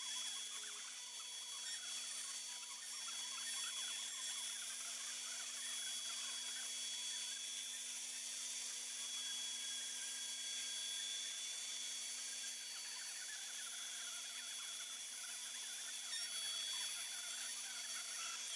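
A machine motor running steadily in the workshop, a low hum under a high whine and hiss.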